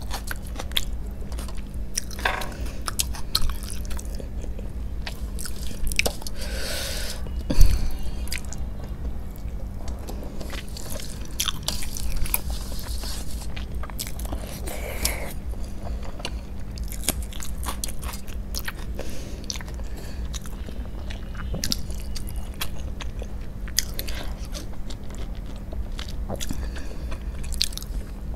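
Close-up eating sounds: chewing and wet mouth clicks as rice and egg curry are eaten by hand, with fingers working the food on a steel plate. One sharp knock about eight seconds in is the loudest sound, over a steady low hum.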